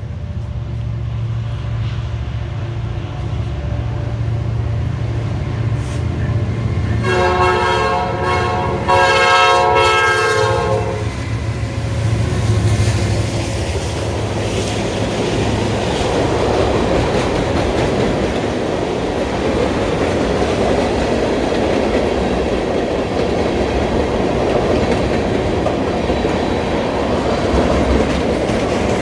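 Illinois Central EMD SD70 diesel locomotives on a freight train, their engines rumbling low as they approach. A few seconds in, the locomotive horn sounds a multi-note chord for about four seconds. Then the freight cars roll past with a steady rumble and a clickety-clack of wheels on the rails.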